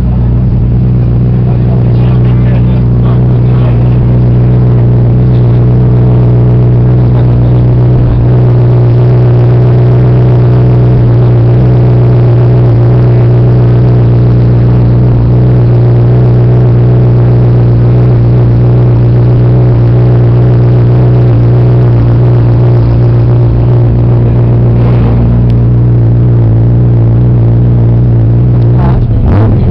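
Ferrari F40's twin-turbocharged V8 idling steadily and loud, holding an even pitch with no revs.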